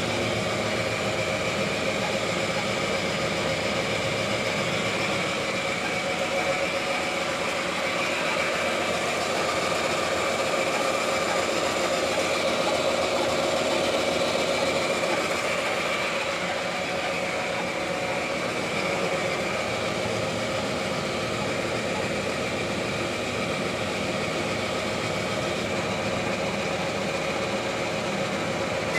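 DoAll vertical bandsaw running steadily, its blade cutting into a rusty steel workpiece.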